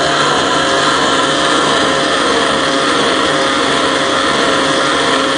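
Spindle of a MillRight CNC M3 router milling aluminum plate with a small end mill: a steady whine of many held tones from the spindle over the continuous hiss of the cutter in the metal.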